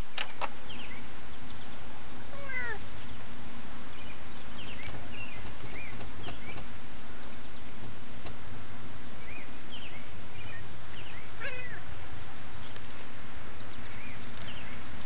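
Domestic cat with its prey making faint, short meow-like calls, with one descending meow about two and a half seconds in and scattered high chirps, over a steady low hum.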